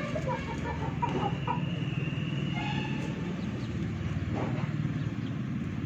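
Young chickens clucking and peeping in a quick run of short notes during the first second and a half, over a steady low hum.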